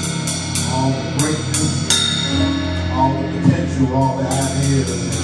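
Live gospel band music led by a drum kit: repeated sharp cymbal and drum hits over sustained low bass notes, with a burst of quick cymbal strokes near the end.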